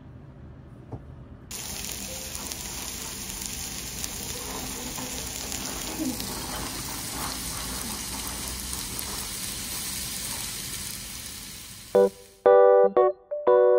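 Pork belly sizzling on a tabletop grill plate, a steady hiss that starts suddenly about a second and a half in and fades out near the end, where piano music comes in.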